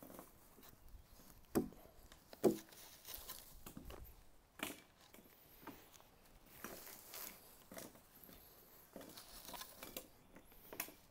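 Rope being wrapped and pulled around two crossed aspen poles for a lashing: faint, scattered rubbing and rustling of the rope on the wood, with two brief louder sounds about two seconds in.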